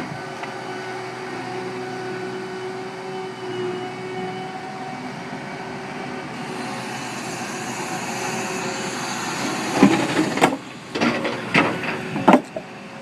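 John Deere 260 skid steer's diesel engine running steadily under load, with a cluster of loud clanks and cracks near the end as the bucket breaks up concrete.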